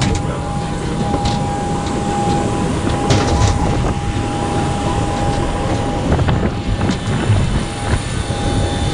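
Steady rumble of a moving vehicle heard from inside, with scattered clicks and a thin steady high tone that drops out for a couple of seconds past the middle.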